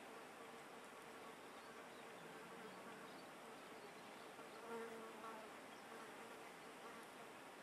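Faint buzz of a flying insect's wings, a steady hum that swells briefly about five seconds in.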